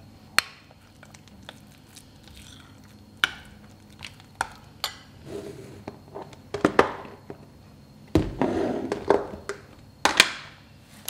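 Metal spoon mixing an egg into a thick, crumbly mixture in a glass bowl: sharp clinks of the spoon against the glass in the first few seconds, then longer scraping, squelching strokes in the second half.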